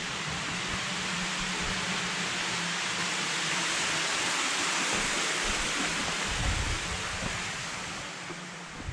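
Rushing water of a waterfall: a steady, loud hiss of falling water that swells towards the middle and eases off near the end, with a few low bumps about two thirds of the way through.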